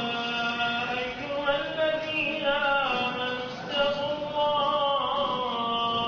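A solo voice chanting in long, ornamented held notes, phrase after phrase with short breaks between them.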